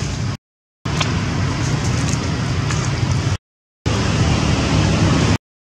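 Steady low rumbling outdoor background noise, broken three times by brief stretches where the sound cuts out to dead silence.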